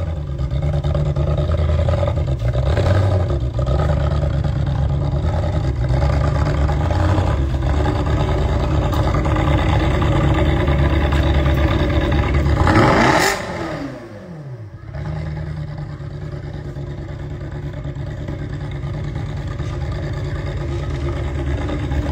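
Ferrari sports car's engine idling steadily, with one short rev about two-thirds of the way through whose pitch rises and falls. The sound then drops away for about a second before the idle returns.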